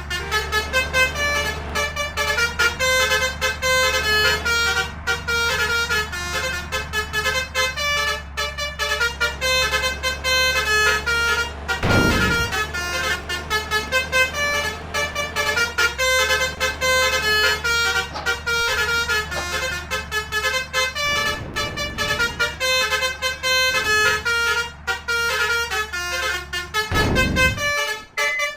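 Basuri multi-tone 'telolet' horn playing a rapid, continuous tune of short notes over a steady low engine hum. Brief rushes of noise come about twelve and twenty-seven seconds in.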